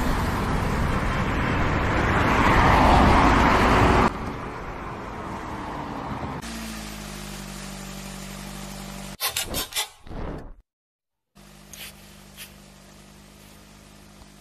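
A van driving fast, loud and rising to a peak about three seconds in, then dropping off to the steady hum of its engine idling. A few short knocks come near the middle, then a moment of silence, and the engine idles on steadily.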